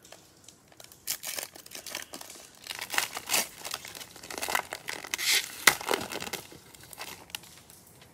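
Plastic cello pack wrapper of Prizm baseball cards torn open and crinkled by hand as the cards are pulled out, crackling in quick bursts that start about a second in, are loudest in the middle and die away near the end.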